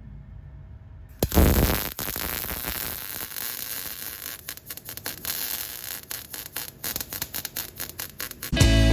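Welding arc crackling and sizzling, starting about a second in and cutting off near the end.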